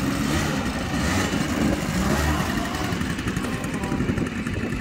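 Quad bike (ATV) engines idling steadily.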